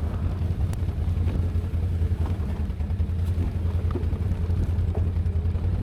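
Can-Am Outlander ATV engine running steadily as the quad rides along a dirt trail, with a low, even drone.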